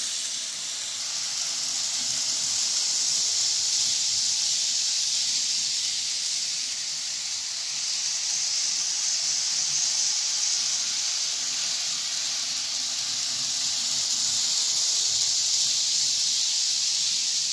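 TT scale model train running on sectional track: a Tillig Vectron locomotive's motor and wheels, with Hornby Mk3 coaches, give a steady high hiss that swells and eases slowly as the train goes round the layout.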